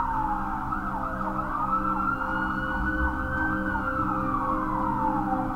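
A siren wailing, its pitch sliding slowly down, rising again about two seconds in, holding briefly, then falling once more, over a low steady drone.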